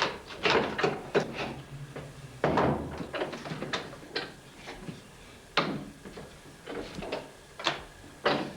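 Hand plane worked on the wooden saddle centrepiece: a series of short, irregular strokes and knocks of wood on wood, with a few sharper knocks about two and a half and five and a half seconds in.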